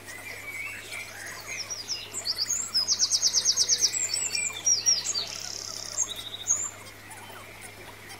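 Songbird singing: quick high chirps and slides, with a fast trill of evenly spaced notes in the middle as the loudest part, then more scattered chirps that fade out before the end.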